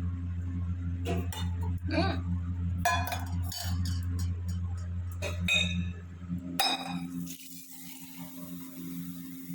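Glass and dishes clinking, a handful of sharp clinks spread across several seconds over a steady low electrical hum that cuts off with a click about two-thirds of the way through.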